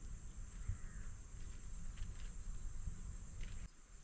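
Wind rumbling on the microphone over a steady high insect drone, with faint rustles of hands working ground bait into a feeder from a plastic bag. The sound drops abruptly near the end.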